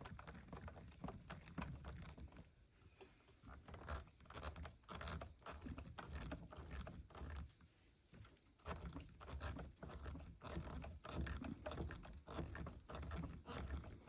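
Faint clicks and scrapes of hand work on a Stihl MS261C chainsaw: a new chain catcher being fitted next to the bar and its Torx screw turned back in, with uneven low handling bumps.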